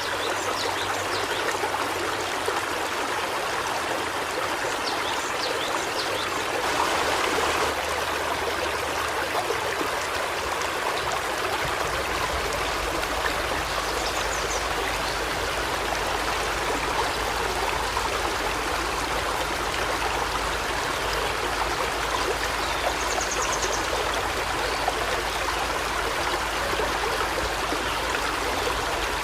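River water flowing steadily. A faint high bird trill comes twice, about halfway through and again later.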